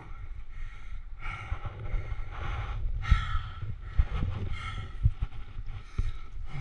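A rock climber breathing hard while hand-jamming up a sandstone crack, about one breath a second. Under it a steady low rumble of wind on the microphone, with a few dull thuds and scuffs of gear and body against the rock.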